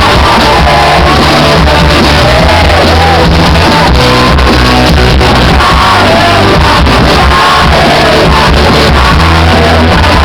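Rock song playing loudly: a sung vocal line over bass guitar and a steady drum beat.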